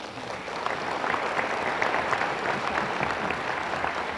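A large audience applauding: a dense, steady clatter of many hands clapping that swells over the first second.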